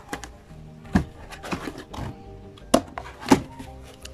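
Background music, with a few sharp knocks and rustles as hard plastic lawnmower grass-catcher parts are lifted out of a cardboard box and bump against it.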